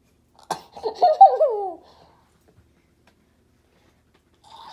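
A girl laughing: one short burst of high giggles about a second in, its pitch sliding down, muffled behind the hands over her face.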